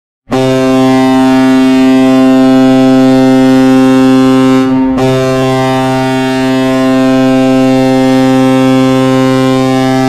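Colorado Avalanche hockey goal horn sounding a low, steady horn blast, broken by a brief gap about five seconds in before a second long blast.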